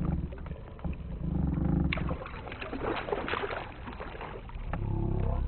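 A hooked fish thrashing and splashing at the water's surface while it is played on a spinning rod. A low rumbling swells twice over it, about a second and a half in and again near the end.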